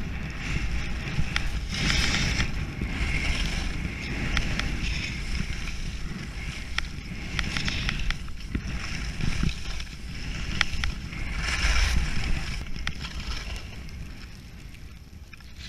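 Head alpine skis sliding and carving through soft snow, a hiss of scraped snow that swells with each turn, most strongly about 2, 8 and 12 seconds in, easing off near the end. Wind rumbles on the microphone underneath.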